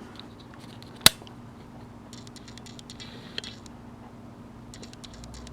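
Small sewing-machine accessory parts being handled: one sharp click about a second in, then light clicking and rattling, over a faint steady hum.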